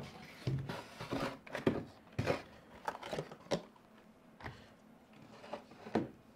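Cardboard box and packaging handled: irregular rustling and scraping with light knocks as a small 1/24-scale RC crawler is lifted out of its cardboard tray and set down on a table.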